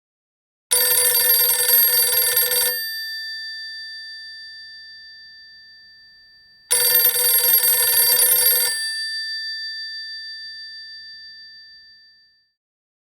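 Electromechanical telephone bell ringing twice, each ring a rapid clatter about two seconds long, followed by the bell's tone dying away. The second ring starts about six seconds after the first.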